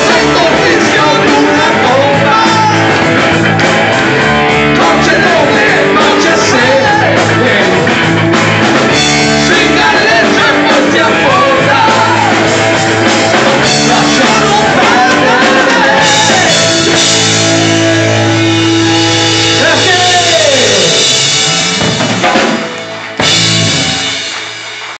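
Live band playing with a man singing into a microphone over drums and keyboards. The music falls away in the last few seconds as the song ends.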